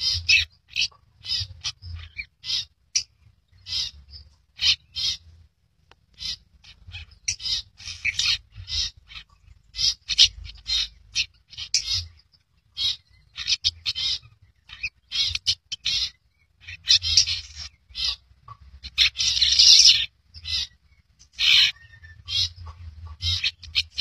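Long-tailed shrike singing: a long run of short, rapid chattering notes in quick clusters with brief pauses, over a low rumble.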